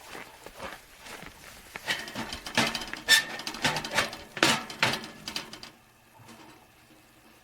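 A run of irregular knocks and clatters, with a brief metallic clink about three seconds in; it stops a little before the end, leaving a faint steady hum.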